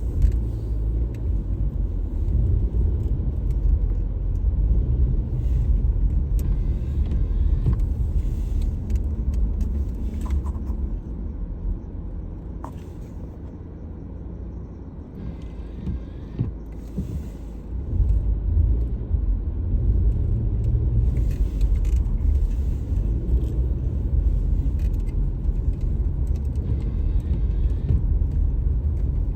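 Car driving, a steady low rumble of engine and road noise that eases off in the middle and comes back louder about eighteen seconds in.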